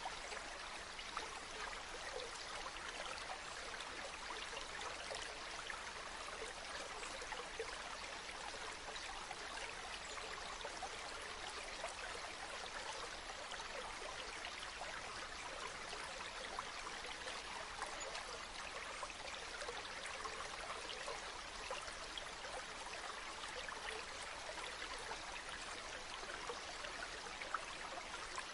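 A flowing stream: a steady, even rush of water with fine bubbling and trickling.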